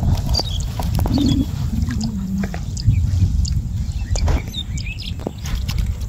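Water dripping and splashing off a gill net as it is hauled hand over hand into a wooden boat, in scattered short clicks over a low rumble. A few brief high chirps of common mynas are heard.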